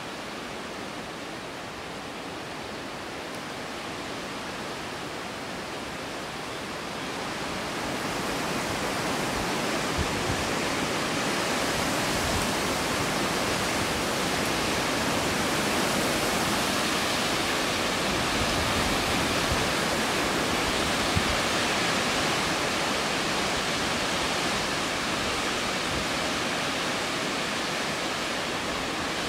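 Gusty wind: a steady rushing hiss that grows louder about seven seconds in and stays up, with a few low knocks of wind buffeting the microphone.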